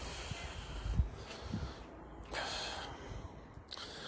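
A man's breathing close to the microphone, with a long breathy exhale a little over two seconds in, and a couple of low thumps about a second in.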